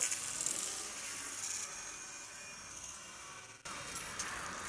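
Baitcasting reel's spool spinning as line pays out behind a heavy 4 oz big-bait lure on the cast: a steady hiss that fades over the first couple of seconds, then cuts off sharply about three and a half seconds in.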